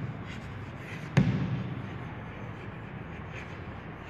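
Chalk writing on a blackboard: light, short scratching strokes, with one sharp knock about a second in.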